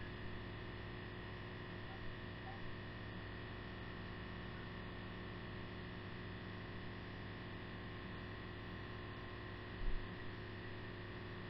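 Steady electrical hum and hiss, with a few faint soft taps and one dull low bump about ten seconds in.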